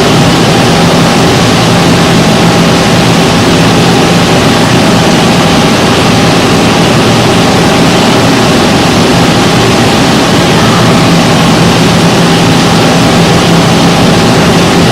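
Tongtai VTX-5 CNC milling and tapping center running, a steady mechanical noise with a low, steady hum and no distinct cuts or tool changes.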